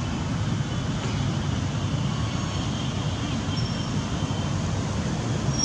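Steady low rumble of wind buffeting the microphone outdoors, with a few faint, brief high chirps.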